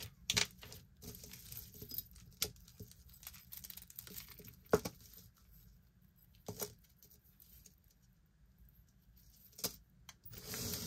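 Costume jewelry being handled: beaded necklaces, cords and small metal chains and clasps clicking and rattling lightly in scattered taps as they are untangled, with a longer rustle near the end.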